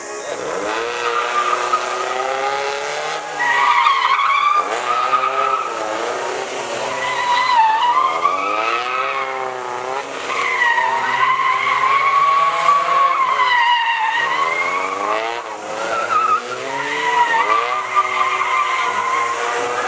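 A car's tyres squealing and skidding in a long, wavering screech that rises and falls in pitch as it spins through tight turns, throwing tyre smoke, with the engine revving underneath.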